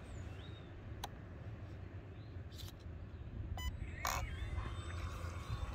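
Wind rumbling on the microphone, with a few faint clicks and brief bird chirps.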